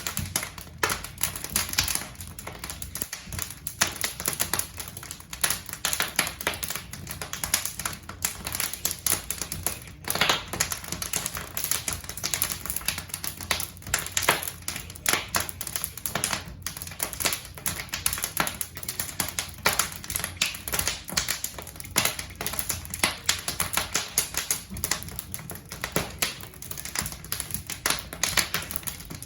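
Wood logs burning in a fireplace, crackling with a dense, irregular stream of sharp pops and snaps.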